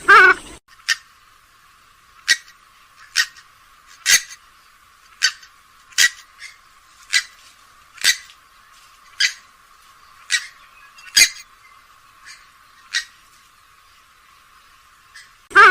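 Grey-headed swamphen giving a series of short, sharp call notes, about one a second.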